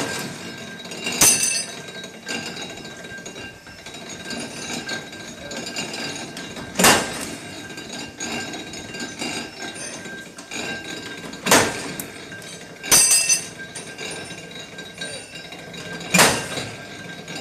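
Steel parts striking metal: about six sharp, irregularly spaced clanks, each with a short metallic ring, over a faint steady high whine.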